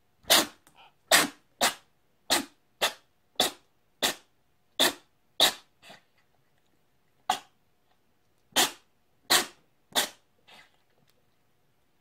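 A domestic cat sneezing repeatedly: about a dozen short, sharp sneezes in quick succession, with a pause of about two seconds near the middle.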